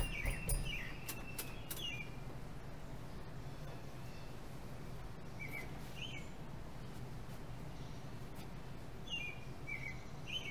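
Outdoor ambience of birds chirping in short calls now and then, over a steady low hum. A few light clicks and knocks in the first two seconds, as the bicycle is stood in place, are the loudest sounds.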